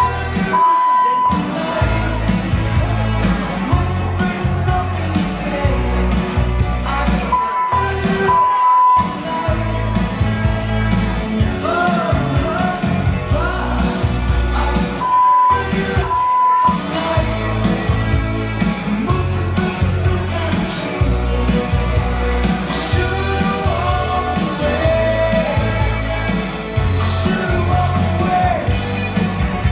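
Recorded pop-rock song with a sung lead vocal played loud over a club sound system. A steady high censor bleep blots out words five times in three groups: once about half a second in, twice around eight seconds in, and twice around fifteen to sixteen seconds in.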